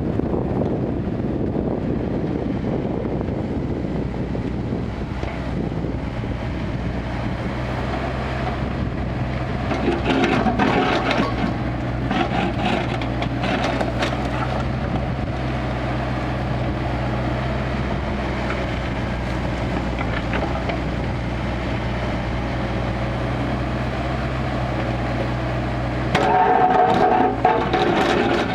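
Kubota KX161-3 mini excavator running steadily with a low diesel hum, with louder bouts of knocking and working noise about ten seconds in and again near the end.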